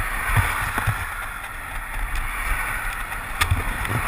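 Riding noise picked up by a bicycle-mounted action camera: wind buffeting the microphone over road and tyre rumble, with low thumps and a couple of sharp clicks near the end.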